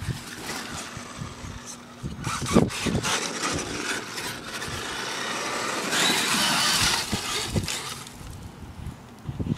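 Traxxas E-Maxx electric RC monster truck driving, its motors and gears whining, with scattered knocks; the whine is loudest for about a second some six seconds in.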